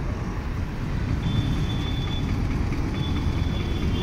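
Steady low rumble of road traffic, with a thin high steady tone sounding twice: about a second long, then about half a second.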